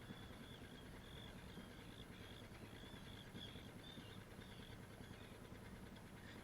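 Boat motor running slowly at trolling speed, a faint steady low hum.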